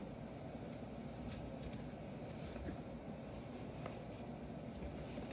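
Trading cards being handled: faint rustling and a few soft clicks over a steady low room hum.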